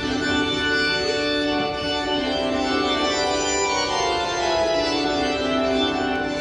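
Organ music starting abruptly with full, held chords that shift slowly, over a low rumble.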